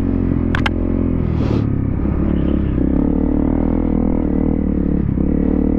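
Honda CRF250L's single-cylinder four-stroke engine running steadily under load, its pitch wavering slightly as the dirt bike rides through rough, sandy ground, with a couple of sharp clicks about half a second in.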